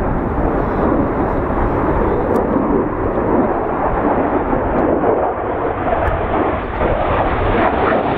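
Saab JS37 Viggen's Volvo RM8 afterburning turbofan: loud, steady jet noise as the fighter manoeuvres overhead, dipping slightly about two-thirds of the way through.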